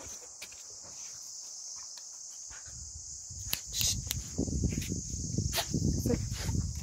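Steady high-pitched insect chirring. From about halfway through, louder close rustling and a few sharp knocks join it.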